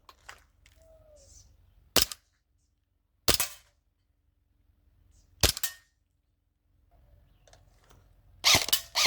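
Airsoft gun firing single shots, sharp cracks spaced a second or more apart, five in all, the last two in quick succession near the end.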